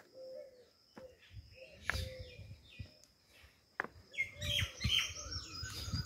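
Many small birds chirping in the trees, scattered at first and then a dense flurry of quick, falling chirps from about four seconds in, over a steady high-pitched drone. Two sharp clicks and some low rumble sit under the birdsong.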